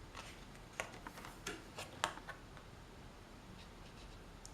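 Oracle cards being handled and flipped: a few faint clicks and light rubs of card stock, clustered in the first two seconds or so.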